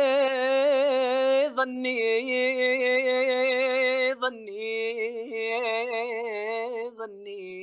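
A man singing an Arabic song unaccompanied, drawing out long held notes with a wavering vibrato. The pitch steps down a few times.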